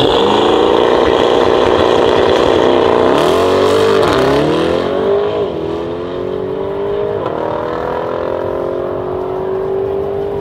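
Mercedes-AMG GT63 S's twin-turbo V8 with a decat exhaust launching hard from the line and accelerating away at full throttle. Its pitch climbs, then drops with four quick upshifts, at about three, four, five and a half and seven seconds in, and climbs again after each.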